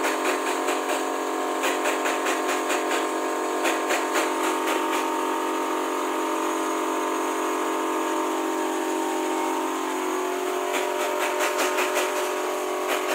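A hand scraper working old gasket off the aluminium stator cover of a Yamaha R15 V3: quick rasping strokes, about three a second, in two spells with a pause between, cleaning the sealing face so the new gasket won't leak. A steady whirring hum runs underneath.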